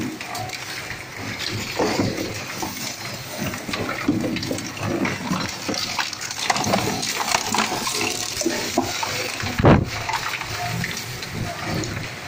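A 20 HP multi-purpose shredder's toothed cutters chewing through a polyethylene plastic drum: the machine runs under an irregular run of cracking and grinding plastic, with one sharp, loud crack about ten seconds in.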